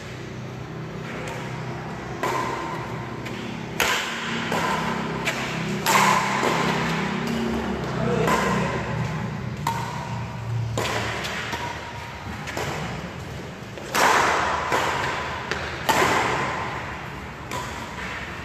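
Badminton rally: sharp racket hits on the shuttlecock roughly every two seconds, several followed by a short ringing ping, echoing in a large hall.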